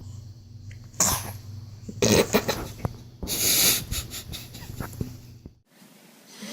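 Three sneezes about a second apart, each a sudden noisy burst, the last one the longest.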